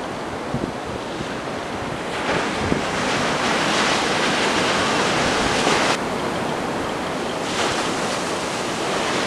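A steady rush of surf and wind noise with no distinct events. It swells about two seconds in, drops back around six seconds, and builds again about a second and a half later.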